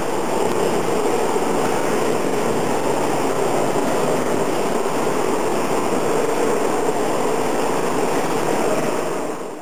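A steady, dense rumbling noise at an even level, fading out quickly near the end.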